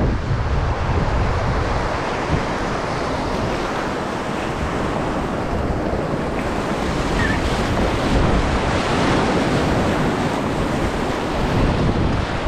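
River whitewater rushing steadily around a raft running a rapid, with wind buffeting the microphone in a low rumble.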